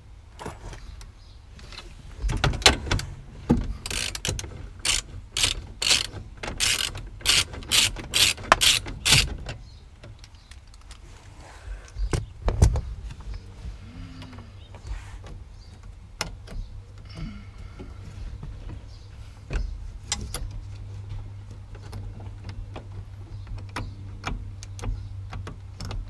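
Sharp metallic clicks and rattles of hand work on a brake pedal assembly and its brake light switch, washers and clip. They come in a quick run of about two a second for some seven seconds, then as scattered single clicks.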